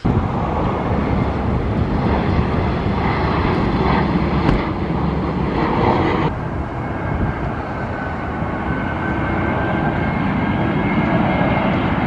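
Steady vehicle rumble and roar. About six seconds in the sound changes abruptly, and a faint high whine then slowly falls in pitch.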